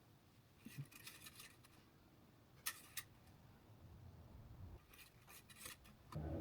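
Near silence with scattered faint clicks and rustles of handling, including two sharper clicks about three seconds in.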